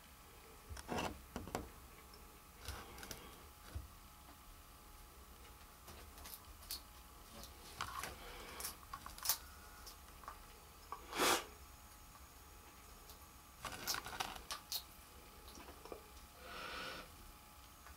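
Frilled dragon chewing a superworm: irregular short crunches and clicks, the loudest about eleven seconds in.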